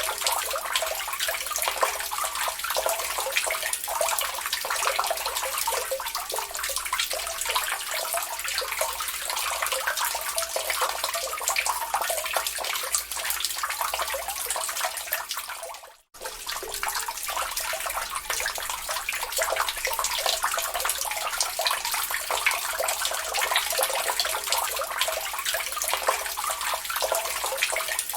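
Water dripping and trickling into a lake: a steady, dense patter of many small drops and splashes. About halfway through it cuts out for a moment, then carries on unchanged.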